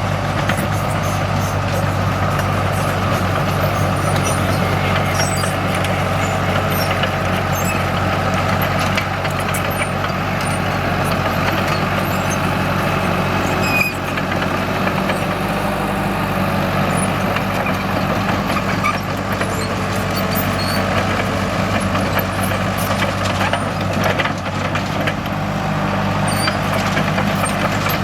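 Komatsu D37EX bulldozer's diesel engine running steadily under work, with scattered clicks and rattles over the engine note.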